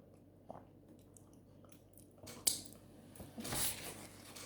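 Close-up sounds of eating plantain fufu with palm nut soup: quiet chewing, a sharp click about halfway through, and a louder, longer burst of eating noise near the end.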